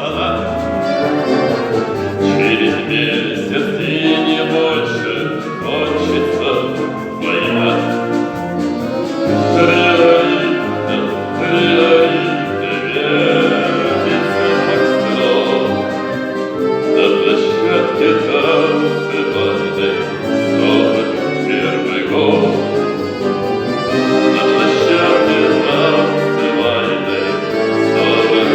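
Artistic whistling of a foxtrot melody, the high whistled tune running over a band accompaniment with brass and a steady bass beat.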